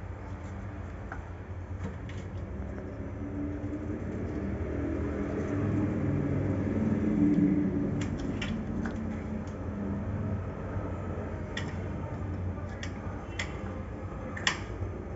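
Gas stove burner running under a steel pot of salted water and penne, a steady low rumble and hum that swells a little midway, with a few light clicks in the second half.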